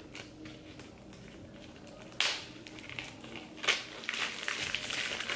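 Hands working at a plastic slime container to get it open: a sharp click about two seconds in and another a second and a half later, then soft handling noise.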